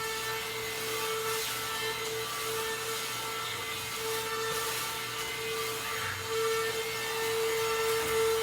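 Portable vacuum cleaner running steadily, its motor giving a constant whining tone.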